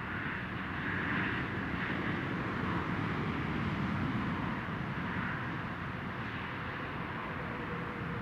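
Steady distant rushing noise of an approaching ICE 3 high-speed electric train, swelling slightly over the first few seconds and then holding.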